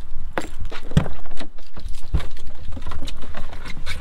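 A campervan's cab door handle and latch being worked and the door opened, a string of sharp clicks and knocks over a steady low rumble.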